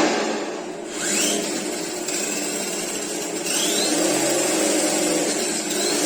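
Electric RC truck running, a steady whir with its motor whine rising in pitch three times as the throttle is blipped.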